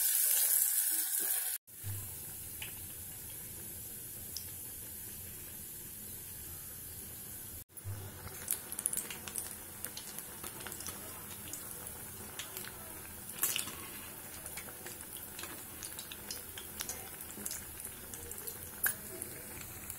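Chana dal vadas deep-frying in hot oil in an aluminium pot: a steady sizzling hiss, louder for the first second and a half. Scattered clicks and taps in the second half as a metal slotted spoon moves them in the oil.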